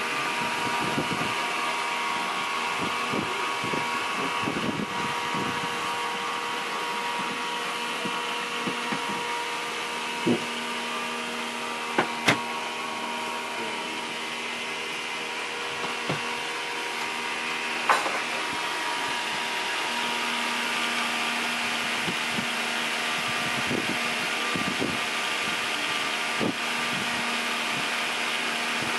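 Steady mechanical drone of machinery running inside a sailing yacht's cabin, with several fixed tones and a few sharp knocks.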